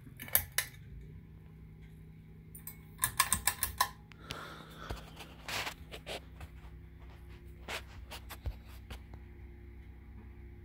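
Low steady hum with scattered sharp clicks, and a quick rattling run of about six clicks some three seconds in.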